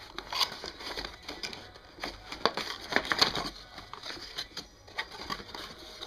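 Cardboard packaging of a CPU retail box being handled: irregular rustling, scraping and tapping as the folded cardboard insert is opened around the stock heatsink and fan.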